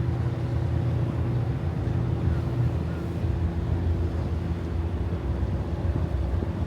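A fishing boat's engine running steadily, a constant low hum.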